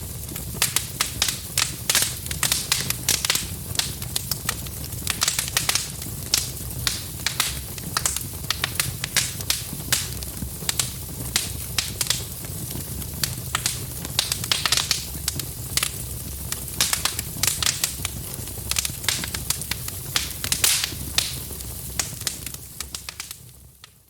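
Wood fire in a fireplace crackling and popping, with many irregular sharp snaps over a steady low rumble of the flames. The sound fades out near the end.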